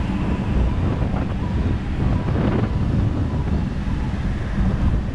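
Wind buffeting the microphone over the steady low rumble of a motor scooter and its tyres riding at speed.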